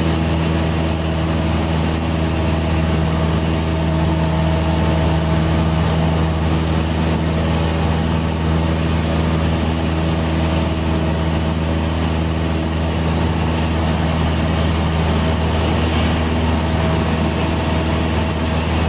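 Cessna 172's four-cylinder Lycoming piston engine and propeller droning steadily in flight, heard from inside the cabin, with no change in pitch or power.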